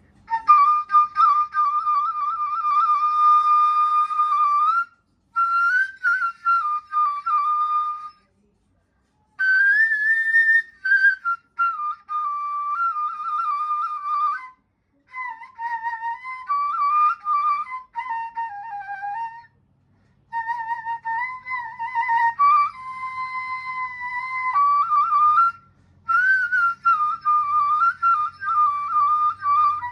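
Solo nay, the Arabic end-blown reed flute, in nawa pitch, played dry with no added effects. It plays a melody in maqam Ajam in breathy phrases, with a wavering vibrato on the held notes, and breaks off in short pauses about 8 and 19 seconds in.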